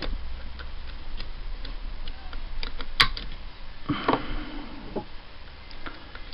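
Small metallic clicks and ticks from a pick and tension tool working the telescopic pins of a Mul-T-Lock Basic euro-profile dimple cylinder, with one sharper click about three seconds in. The cylinder is in a false set caused by the telescopic pins.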